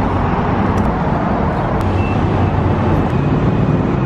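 Steady road-traffic rumble and hiss, with a few faint clicks about one and two seconds in as a pickup's fuel cap is unscrewed.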